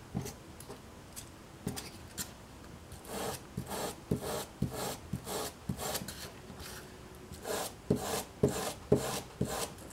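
Wire brush scraped in repeated strokes along a strip of soft foam, gouging wood-grain lines into it. The strokes come singly at first, then in a quicker run of about two a second near the end.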